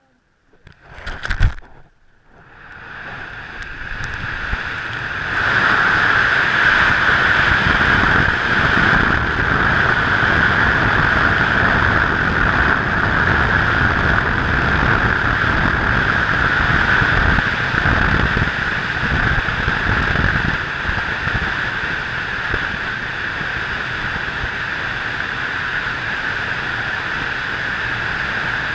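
Wind rushing over the microphone in flight under a paraglider. There is a brief knock about a second and a half in, then the rush builds over a few seconds and holds loud and steady, with a hissing band in it.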